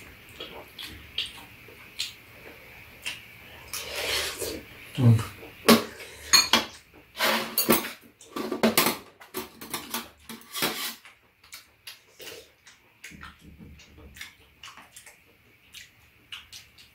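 Metal spoons and chopsticks clinking and scraping against a frying pan and rice bowls during a meal. The clatter is busy for the first ten seconds or so, then thins to scattered light clicks.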